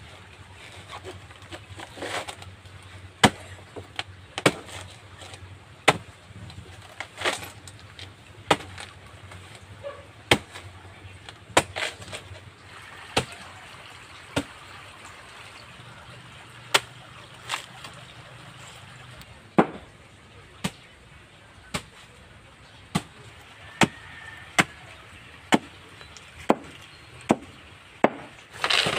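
A machete chopping a banana trunk into pieces on a board: short, sharp chops about once a second, falling into a steady quick rhythm near the end.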